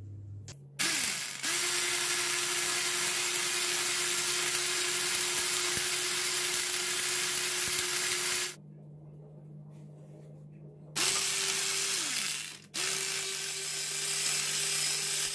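Electric hand mixer beating eggs, running at one steady speed: it spins up about a second in and runs for about seven seconds, stops, then runs twice more near the end, slowing briefly between the two runs.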